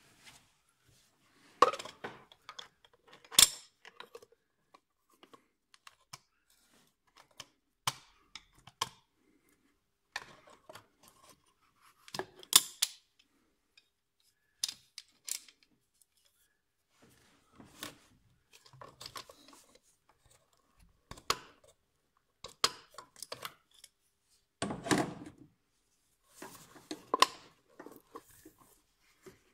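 Hand tools and car parts being handled during repair work: irregular clicks, clinks and knocks with some rustling, a few sharper strikes standing out among quieter handling noises.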